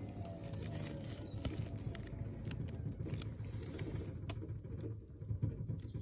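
Air compressor running with a steady low hum, with scattered sharp ticks.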